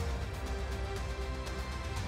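Intro theme music with heavy bass and a steady beat.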